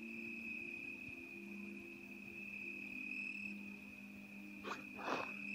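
Crickets trilling on one steady high note, with a low steady hum underneath. Two brief rustles come near the end.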